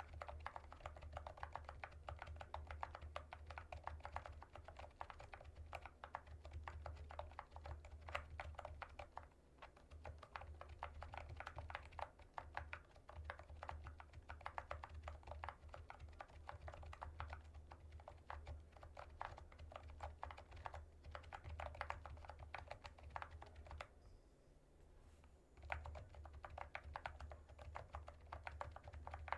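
Continuous fast typing on a low-noise membrane Bluetooth keyboard: quick, soft, muted key clicks, with a short pause about five seconds before the end.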